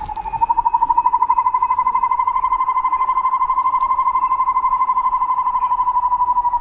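A cicada calling: a loud, rapidly pulsing buzz at one steady pitch, swelling in at the start and then holding.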